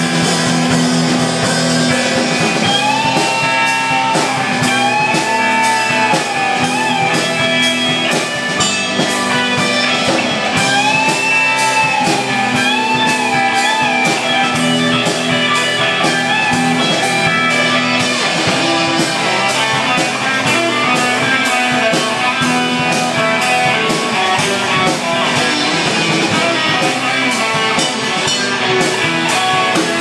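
Live rock band playing loud: electric guitars over a drum kit keeping a steady beat, with a wavering high melody line rising over it twice.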